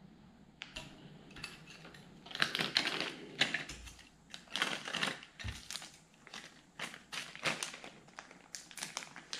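Small clear plastic bag crinkling and rustling in the hands as it is worked open, with irregular light clicks, louder in a few short flurries.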